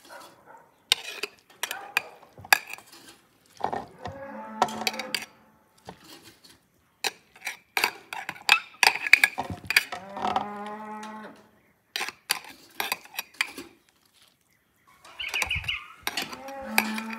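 A cow moos three times, each a long drawn-out call. Between the calls a metal spoon clicks and scrapes against a cooking pot and a glass jar as chopped green beans are spooned into the jar.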